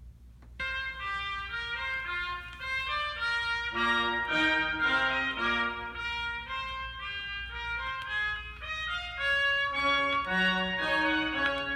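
Instrumental music playing from a 45 RPM record on a JVC QL-Y66F quartz-locked turntable, starting about half a second in with a run of sustained melodic notes.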